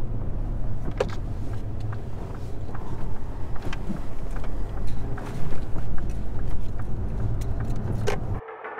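Car cabin noise while driving: a steady low rumble of engine and road, with scattered small clicks. It cuts off suddenly near the end.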